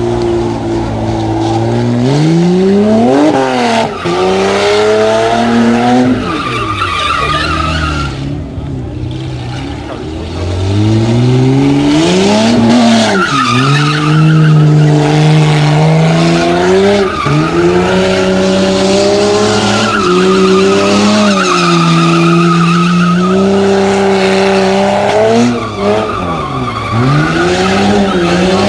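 BMW E30 3 Series saloon drifting in circles: its engine revs rise and fall again and again, and the rear tyres squeal on the tarmac. The engine eases off into a quieter lull about a third of the way through.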